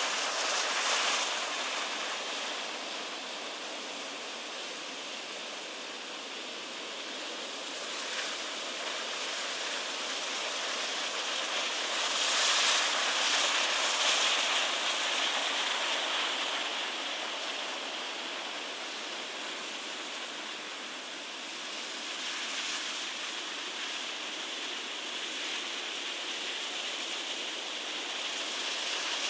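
Heavy ocean surf: large waves breaking and churning into white water, a continuous rushing wash that swells as each wave crashes. The loudest crash comes about twelve to fifteen seconds in.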